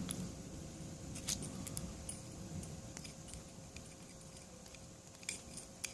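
Lock pick and tension tool working the pins inside a Dongchang padlock: scattered light metallic clicks and scrapes, with a few sharper ticks near the end.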